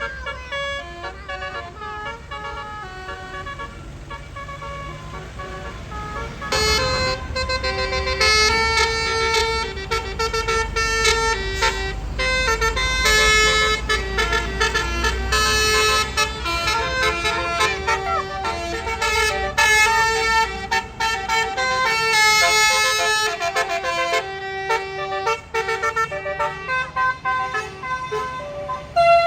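Tour bus basuri 'telolet' multi-tone horns playing quick tunes of stepped notes, one phrase after another, growing louder about six or seven seconds in, over the low rumble of the bus engine.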